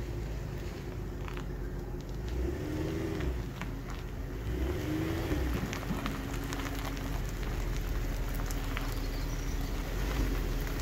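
A car engine running with a steady hum, its pitch briefly rising and falling a couple of times.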